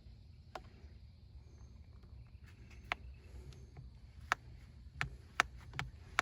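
Small hand-operated gear-oil pump being worked to prime it and draw up thick 85W-140 gear oil: a run of sharp, irregular clicks that come quicker and louder in the second half, over a steady low rumble.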